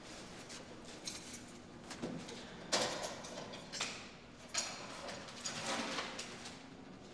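A small metal apartment mailbox being unlocked with keys and opened: a few sharp metallic clicks and clatters, the loudest about a third of the way in.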